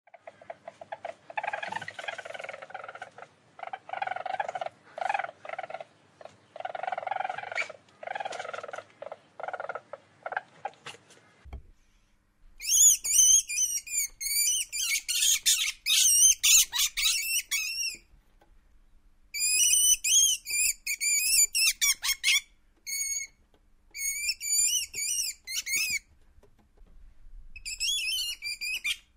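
Least weasel calls: first a series of lower-pitched calls in short bursts, then, after a brief pause about eleven seconds in, loud, high-pitched squeals with a rapidly warbling pitch. The squeals come in runs of a few seconds broken by short gaps.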